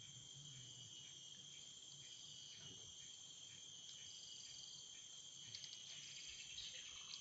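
Faint, steady, high-pitched insect chorus, with a few light clicks in the second half.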